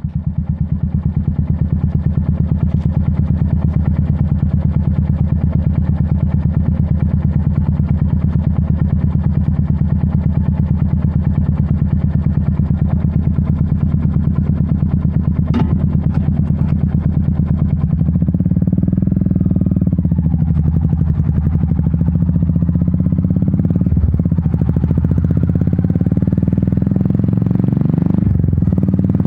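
Royal Enfield Meteor 350's single-cylinder engine idling steadily through its exhaust, with one sharp click a little past halfway. After about eighteen seconds the engine speed starts to rise and fall.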